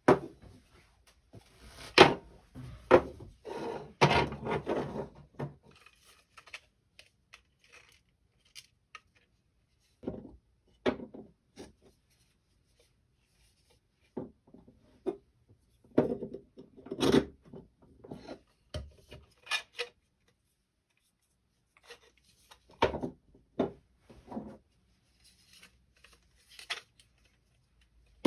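3D-printed plastic parts, a hub and hollow wheel drums, being handled, rubbed against each other and set down on a hard board: scattered clacks and knocks in several short bursts, with quiet gaps between. The sharpest knocks come about two seconds in and again about seventeen seconds in.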